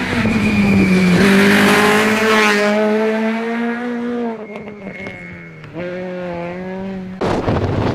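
Rally car engine held at high revs through a tight hairpin and fading as it pulls away, then the steady note of a second rally car approaching. Near the end the sound cuts abruptly to a loud rushing noise.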